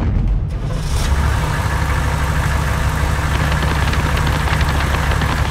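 Truck engine sound effect running steadily with a heavy low drone.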